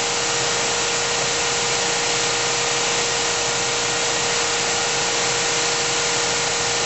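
GMP SG-1000/400 hydraulic surface grinder running steadily: a constant whine over an even rush of machine noise.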